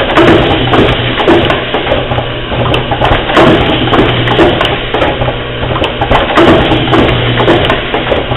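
IV cannula tube-cutting and wing-assembly machine running: a vibratory bowl feeder hums steadily while parts rattle in it, and the mechanism clacks repeatedly as its pneumatic cylinders cycle.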